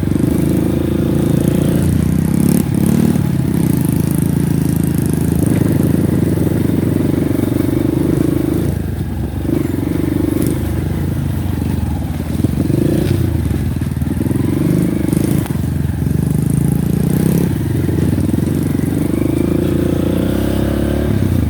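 Honda Win motorcycle's single-cylinder four-stroke engine running under way, its revs swelling and easing several times. A few sharp knocks and rattles are mixed in.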